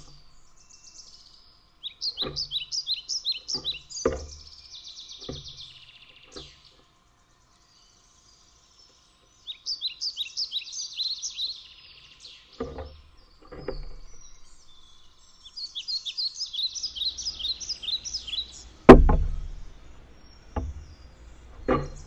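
Sharp knocks of a scrub-jay's bill pecking at seed and peanuts on a wooden feeder table, with one much heavier knock about three-quarters of the way through. Between them, a bird calls in three quick runs of short, high chirping notes.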